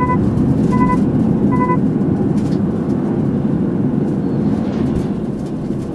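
Steady road and engine noise of a car driving on a highway, heard from inside the car. Three short electronic beeps sound just under a second apart near the start.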